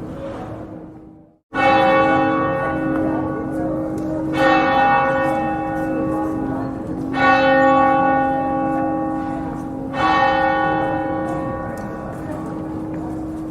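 Church bell tolling: four strikes about three seconds apart, each ringing on with many overtones. The sound cuts to a brief silence just before the first strike.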